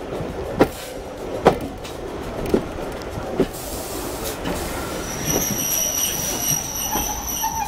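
Train running along a station platform, its wheels clicking over rail joints roughly once a second over a steady rumble. From about five seconds in a high-pitched steady wheel squeal sets in as it draws into the station.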